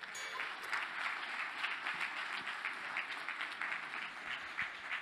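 Audience applauding, a dense patter of many hands clapping.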